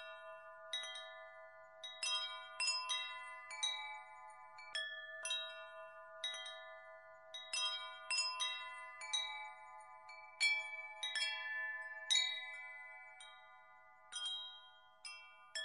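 Wind chimes ringing in irregular strikes, each tone sustaining and overlapping the next.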